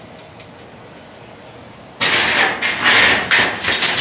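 The metal charcoal tray of a La Caja China roasting box, loaded with burning briquettes and ash, is set onto the box and shaken. The coals rattle and scrape against the metal grid and pan in a loud, uneven burst that starts suddenly about halfway through. The shaking knocks the ash off the coals.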